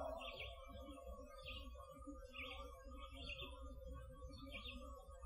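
Faint dawn woodland ambience: a small bird chirping, about five short high notes spaced roughly a second apart, over a steady faint hum and low rumble. The tail of a louder harsh call fades out at the very start.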